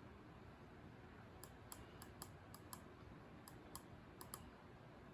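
Faint clicking at a computer: about ten short, sharp clicks, some in quick pairs, over quiet room hiss.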